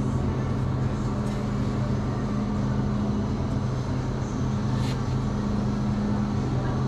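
Steady hum of a supermarket's open refrigerated display cases and ventilation, with two constant low tones running through it and a faint click about five seconds in.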